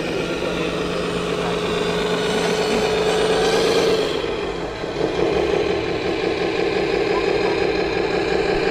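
Scale RC MAN KAT1 6x6 trial truck running steadily as it crawls over stone blocks, with a short dip in its sound about halfway through.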